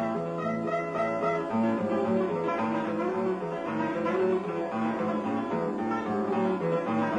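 Two acoustic guitars playing a duet, a plucked melody over bass notes that ring on without a break.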